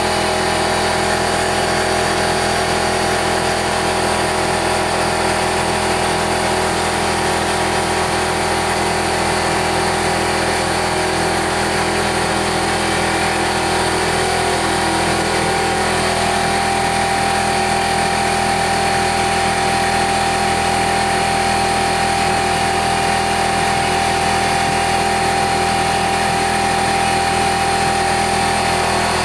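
800 W spindle of a CNC 3020 router at 20,000 rpm, its 4-flute end mill facing off round 6061 aluminium stock. It makes a steady whine with hiss from the cut, and one tone in it shifts slightly about halfway through.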